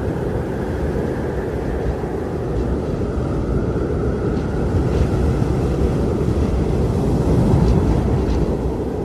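Strong wind blowing steadily with a deep, rushing rumble, swelling a little about seven to eight seconds in.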